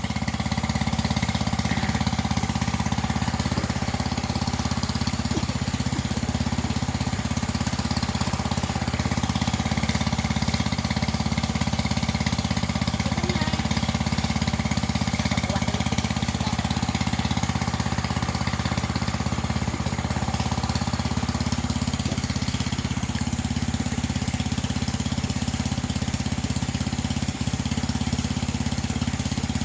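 Small engine of a water pump running steadily at a constant speed.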